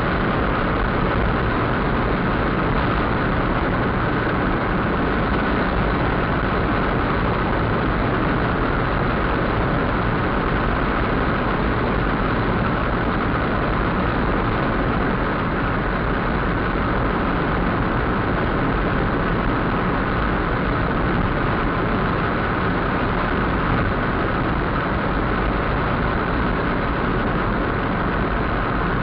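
Steady engine and road noise inside a moving car, unchanging throughout.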